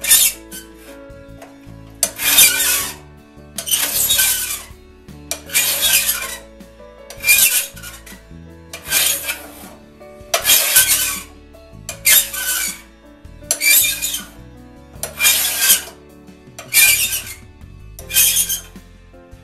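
Steel flat file stroking across a raker tooth of a one-man crosscut saw, riding on the hardened plate of a raker depth gauge. It rasps in separate strokes, about one every second and a half. The file is dressing the raker down to 15 thousandths below the cutting teeth.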